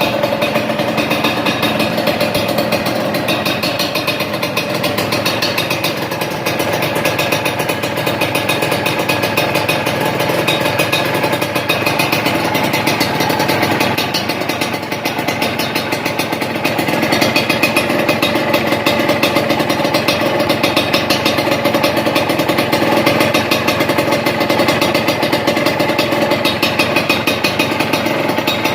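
Suzuki TS125's two-stroke single-cylinder engine idling steadily through a Triton RS-5 stainless-steel aftermarket exhaust, a little louder from about halfway through.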